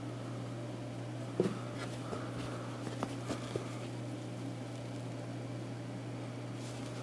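A steady low hum, with a few light clicks and soft rustles between about one and a half and three and a half seconds in as a fabric snapback cap and its plastic strap are handled.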